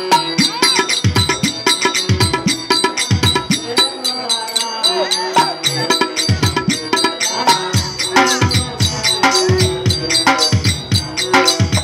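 Live folk-drama accompaniment music: hand-drum strokes that drop in pitch after each hit, over a dense run of rapid percussive clicks and a few held steady tones.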